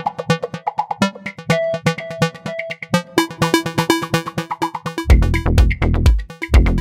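Electronic background music with a steady drum-machine beat and synth notes; a heavy bass line comes in about five seconds in.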